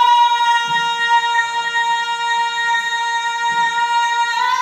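A woman singing a cappella, holding one long, steady high note with no vibrato, which starts to break and slide down at the very end.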